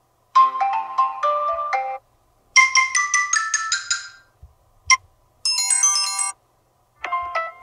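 Samsung Galaxy Tab S2 alarm tones previewed one after another. Several short electronic melodies and chimes, each lasting a second or two and separated by brief gaps.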